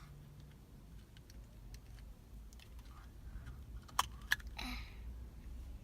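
Small plastic Kinder Egg toy being handled: light taps and clicks, with two sharp clicks about four seconds in and a brief rustle just after, over a steady low rumble.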